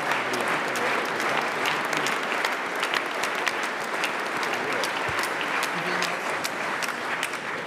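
Audience applauding steadily, many hands clapping together, beginning to die down near the end.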